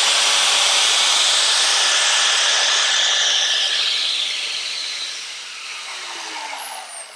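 Die grinder with a cutoff wheel grinding down a plastic dental mirror: a loud, steady, high-pitched grinding hiss that fades from about halfway through. Near the end the wheel spins down with a falling whine.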